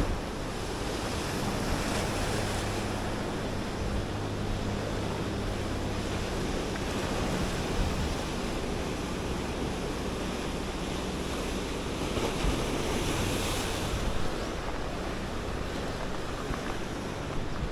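Sea waves surging and washing against rocky shore and a seawall, a steady rush that swells louder around two seconds in and again around twelve to fourteen seconds.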